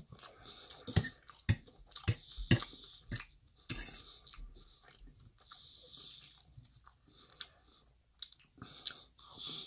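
Close-miked chewing of a mouthful of rice and chicken curry, with several sharp clicks of a metal fork against a stainless steel bowl between about one and four seconds in.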